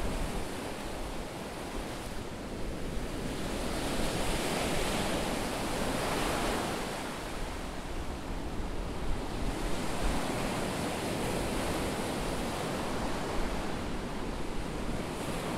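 Ocean surf on a sandy beach: a steady rushing noise that swells and eases every few seconds, with wind rumbling on the microphone.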